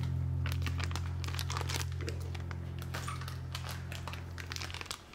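Crinkling with scattered small clicks and crackles, over background music whose low held chord ends near the end.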